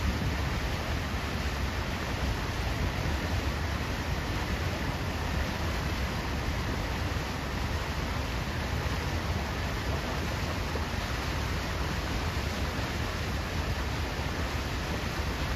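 Steady rushing of wind and water with a deep rumble, heard from aboard a trawler under way on the river.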